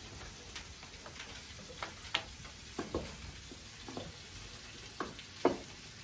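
Light, scattered clinks and knocks of dishes, glasses and cutlery at a set dinner table, about eight in all, the loudest about five and a half seconds in, over a faint steady hiss.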